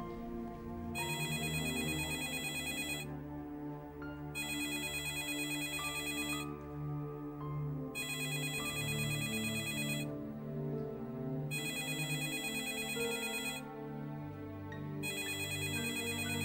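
Telephone ringing: five rings, each about two seconds long with a pause of about a second and a half between them, the call going unanswered. Soft soundtrack music plays underneath.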